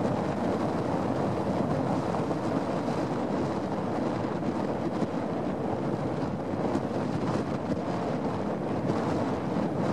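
Wind buffeting the microphone in a steady rush, over the sound of choppy lake water.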